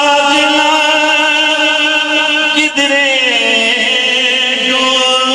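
A male voice holding one long sung note of a Punjabi naat. The pitch drops about three seconds in and wavers into an ornament near the end.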